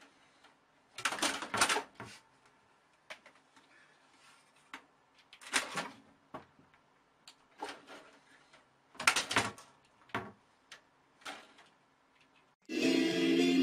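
Scattered short knocks and scuffing noises, a few seconds apart, then music starts near the end.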